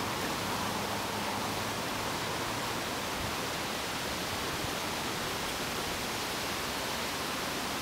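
Steady, even background hiss, with nothing else standing out.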